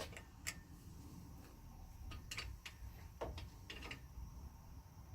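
A few faint, irregular metallic clicks of a hand tool tightening the kick-start lever's clamp bolt on a small Kawasaki KV75 engine.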